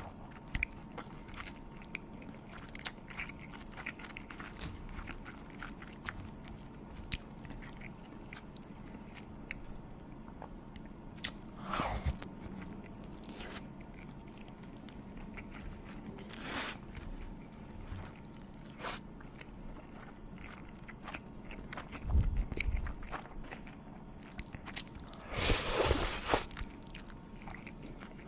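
Close-miked eating: a person biting and chewing food, with small crunching and mouth clicks all through. A few louder, noisier sounds stand out, the loudest near the end.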